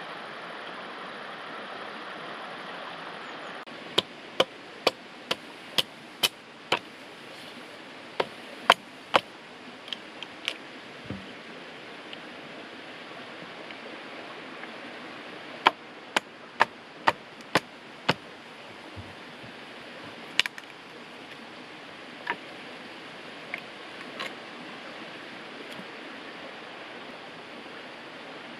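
Wooden baton striking the spine of a fixed-blade knife to split a pole: sharp knocks about two a second in runs of several strikes with pauses between, then a few single knocks, over a steady rushing hiss.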